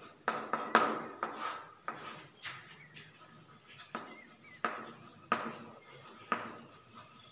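Chalk writing on a blackboard: a string of short, sharp taps and scratches, about a dozen at irregular intervals, as letters are written stroke by stroke.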